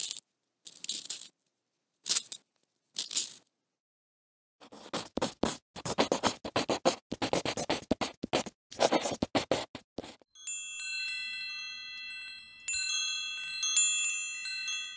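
A pencil sharpener shaving a pencil in four short separate strokes. Then, from about four and a half seconds in, scribbling on paper in quick scratchy strokes. From about ten seconds in, a wind chime rings, its bells sounding several clear tones that overlap and linger.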